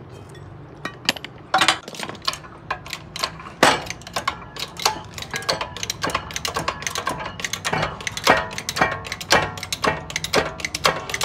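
Irregular metallic clicks, clinks and knocks of steel parts and tools being handled during front hub and wheel bearing work, some strikes ringing briefly. The strikes come more thickly in the second half.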